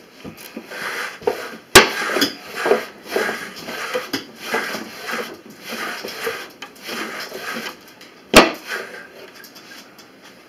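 Wooden hand wool picker at work: the nail-studded board is dragged back and forth over the tines in the wooden tray, about two scratchy rubbing strokes a second as it teases open a lock of dyed wool. Two sharp wooden knocks stand out, about two seconds in and near the end.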